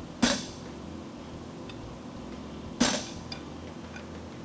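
Two hammer blows on a red-hot steel bar on the anvil, about two and a half seconds apart, each with a short metallic ring, while a fuller is being forged.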